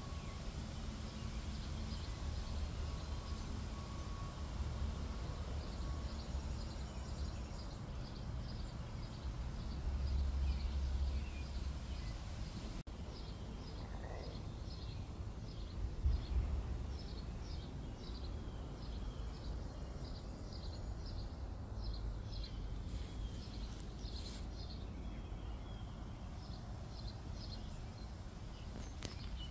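Outdoor garden ambience: a steady low rumble with regular short, high chirps, about two a second, through most of it.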